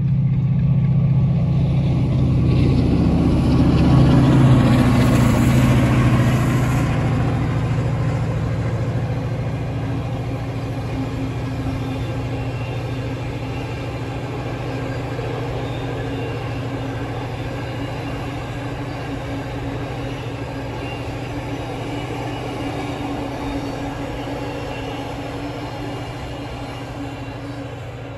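Direct Rail Services Class 68 diesel-electric locomotive passing at speed with an intermodal container train. The engine is loudest about four to six seconds in, then the steady rumble and clatter of the container wagons on the rails follows and slowly fades.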